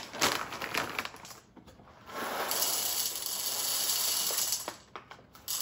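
Whole coffee beans poured from a bag into an espresso machine's plastic bean hopper: a scattered rattling of beans at first, then a steady rushing pour from about two seconds in until nearly five seconds, starting again just before the end.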